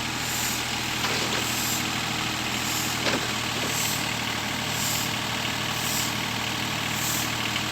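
Backhoe engine running steadily.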